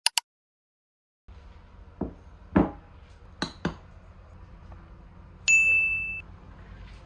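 A few sharp knocks and clinks of things being handled, then a single steady electronic beep lasting under a second.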